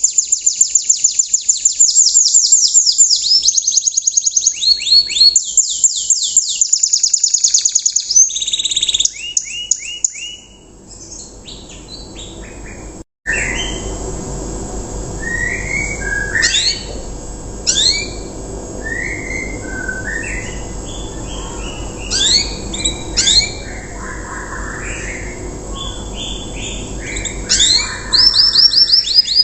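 Young untrained domestic canary singing a rough 'riwikan' song: fast trills of rapidly repeated high notes, then after a brief break about 13 seconds in, slower varied notes and short rising whistles over a low background hum, before the fast trills return near the end.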